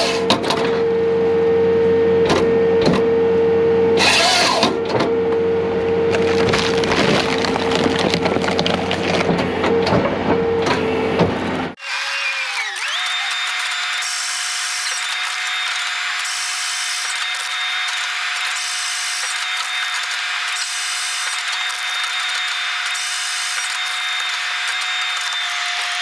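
Halverson HWP150 skid-steer firewood processor sawing through a log: its chainsaw bar cuts with a steady whine over the skid steer's engine, with scattered knocks of wood. About halfway through the sound cuts off abruptly to a steady higher whine with a regularly pulsing hiss and no low rumble.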